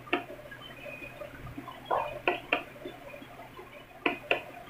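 Soft clicks of the control-panel buttons on a dB Audio Partybox 212 party speaker being pressed to change its mode, a few scattered presses in small groups.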